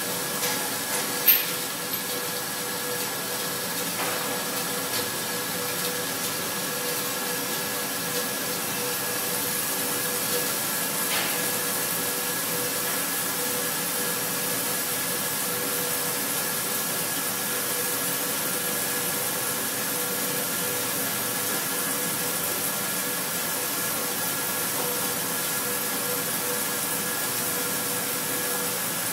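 CNC milling machine slotting P20 steel with a 3/8-inch four-flute rougher-finisher end mill at about 1,477 rpm, full cutter width and 0.46 inch deep: a steady cutting and spindle drone under flood coolant, with a hiss. There is one sharp click about a second in.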